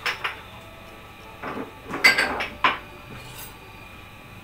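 Kitchen utensils and glassware being handled on a countertop: two quick clinks at the start, a small cluster of clinks and knocks about two seconds in, and one more sharp knock shortly after.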